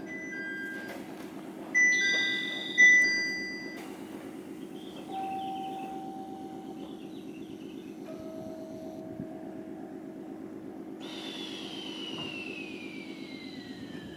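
Electric train standing at a station platform, its equipment giving a steady hum. Two loud ringing tones sound about two and three seconds in, and a high whine falls steadily in pitch near the end.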